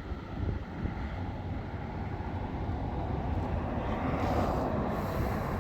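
Gusty wind buffeting the microphone with an uneven low rumble, and a broader hiss swelling about four seconds in.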